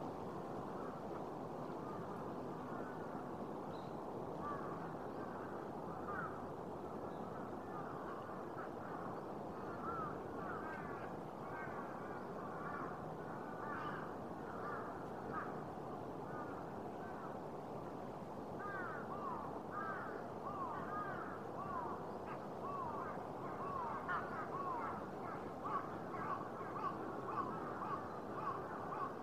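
Birds calling: many short, arching calls, a few at first and coming thick and fast through the second half, over a steady background rumble.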